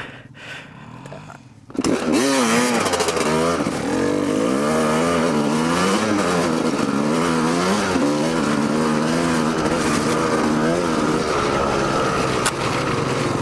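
Dirt bike engine cutting in loud about two seconds in, revving up and down as the bike pulls away, then running steadily as it rides along.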